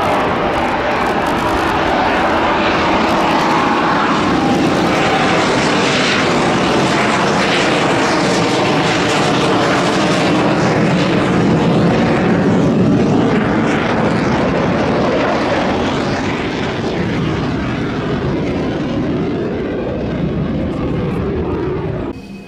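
Chengdu J-10 fighter jet flying a low display pass with loud, continuous jet engine noise. Its pitch sweeps downward in the first few seconds and glides up again near the end as the aircraft moves past. The noise is loudest around the middle and eases off slightly toward the end.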